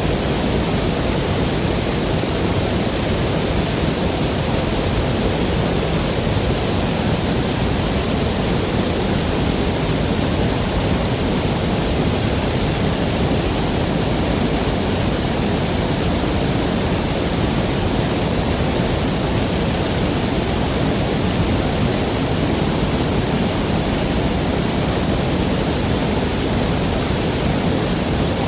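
Waterfall's water rushing steadily: a loud, unbroken wash of noise, fullest in the low and middle range, with no separate splashes or breaks.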